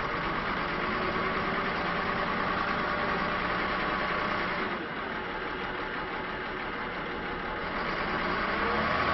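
Volvo A30C articulated dump truck's diesel engine running at low speed as the truck moves slowly, easing off briefly about halfway through, then revving up near the end.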